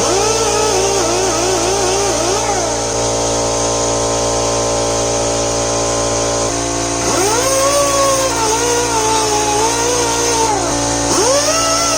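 A handheld power tool spinning a cleaning wheel to strip rust from a steel bracket. It runs in three spells, each winding up in pitch, then dipping again and again as the wheel is pressed into the metal, then winding down.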